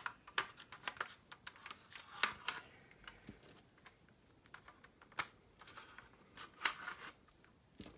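Hands handling a plastic model aircraft fuselage: faint, scattered small clicks and rustles of fingers on plastic and masking tape.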